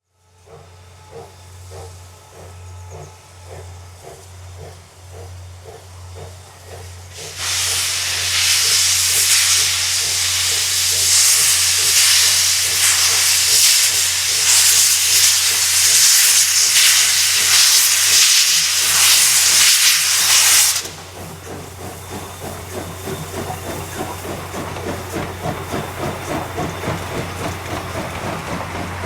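C57 steam locomotive pulling out of a station: even exhaust beats at first, then a loud hiss of steam from about seven seconds in that stops abruptly about twenty-one seconds in, after which the exhaust beats come quicker as it gathers speed.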